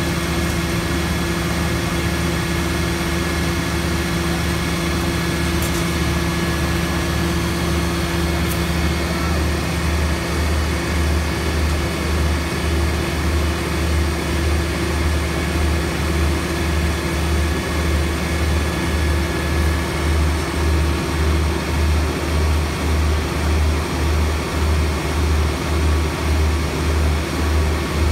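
Engine running steadily, a continuous drone with a low hum. About a third of the way in, a low throbbing sets in, pulsing just under twice a second.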